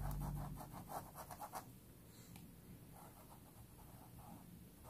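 Stiff sanded paintbrush rubbing fabric paint into a cloth towel: faint, quick strokes, about six a second for the first second and a half, then fewer and fainter ones.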